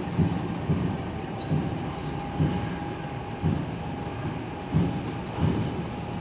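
Container truck with an empty container on its chassis driving slowly away: a low engine rumble broken by heavy clanking thumps at uneven intervals, roughly once a second.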